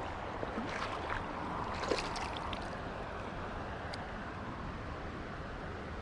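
Steady rush of flowing creek water, with a few small clicks and rustles between about half a second and two and a half seconds in, and one sharp click about four seconds in.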